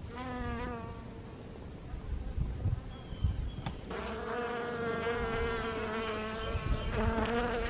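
Honeybees buzzing in flight close by at the hive entrance: a short buzz at the start, then a steady, slightly wavering buzz from about four seconds in.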